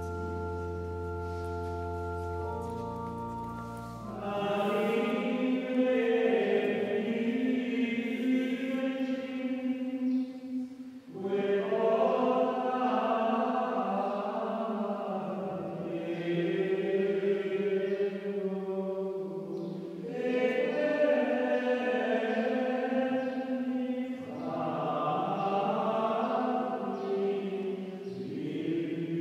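An organ holds a sustained chord for the first few seconds and stops. Then men's voices sing Gregorian chant in Latin in unison, without accompaniment, in long phrases with short breaths between them.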